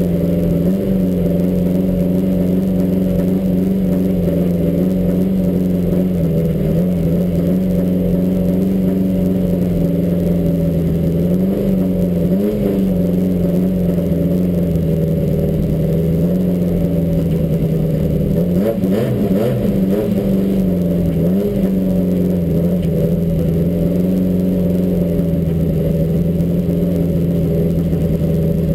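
Tuned 16-valve engine of a front-wheel-drive VW Gol drag car, heard from inside the cabin, held at a steady pitch while the car sits at the start line, rising briefly a few times before settling back.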